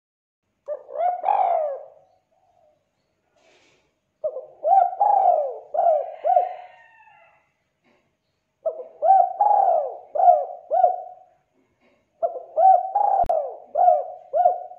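Spotted dove (tekukur) cooing: four phrases of low, arching coo notes, each a quick run of several notes, with a pause of a second or two between phrases.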